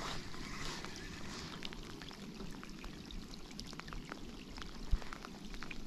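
Steady rain falling on a lake and on a rain jacket, with scattered drops ticking close by. A single low thump comes about five seconds in.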